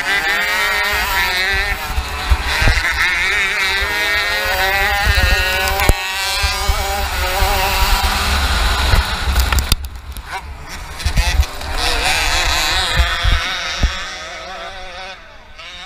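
Racing kart engine heard onboard, its revs rising and falling through the corners. About ten seconds in the revs drop sharply, then climb again. Near the end the engine sound fades as the kart runs off into the dirt.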